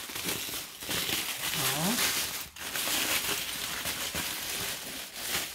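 Aluminium foil and paper-towel wrapping crinkling and rustling steadily as a parcel is unwrapped by hand.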